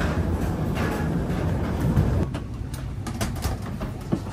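Rolling suitcase wheels and footsteps rumbling over a jet-bridge floor, with small knocks over its seams. The rumble stops about halfway through, leaving a quieter steady hum with a few clicks as the walkers step aboard.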